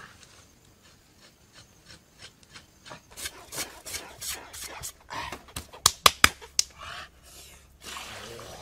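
Repeated rough rubbing strokes on a pig carcass's skin, starting about three seconds in, with a few sharp, loud clicks clustered around the middle.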